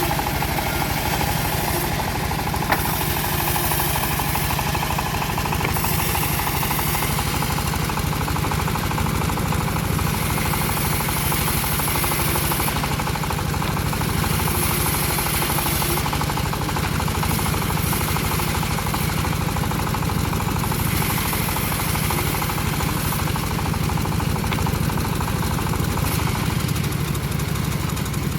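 Homemade bandsaw mill running steadily under power, its engine drone unbroken, with a high hiss that swells and fades several times over it.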